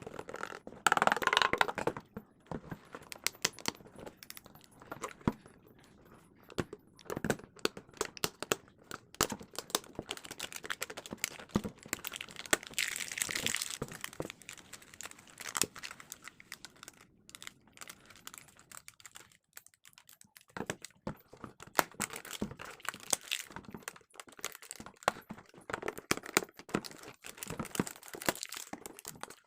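A chips packet being crinkled and handled: a dense run of sharp crackles and clicks, loudest about a second in and again around thirteen seconds in, with a brief lull later on.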